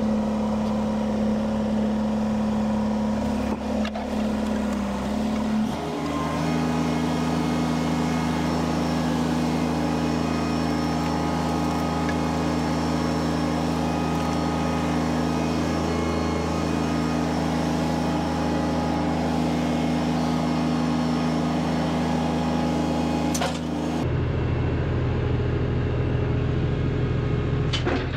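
Kubota BX compact tractor's three-cylinder diesel engine running at a steady speed. Its pitch steps up about six seconds in, and the sound shifts again near the end.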